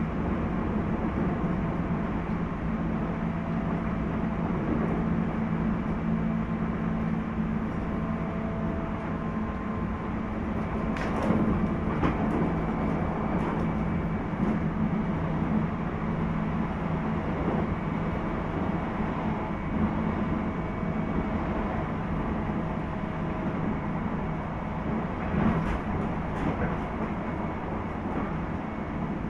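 Interior running sound of a JR East 719 series electric train's motor car (KuMoHa 719-1) under way: a steady rumble with a held hum of several level tones, and a few short knocks about eleven seconds in and again near twenty-five seconds. The uploader wonders whether this car makes an unusual noise.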